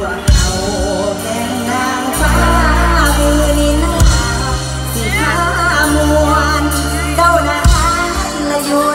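Live mor lam band played loud through a PA: a woman sings over long held bass notes and drum hits.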